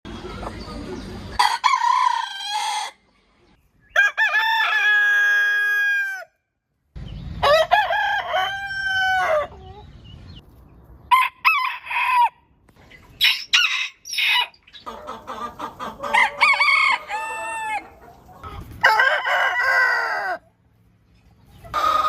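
Backyard roosters crowing again and again, each crow a long call of one to two seconds, with clucking between crows.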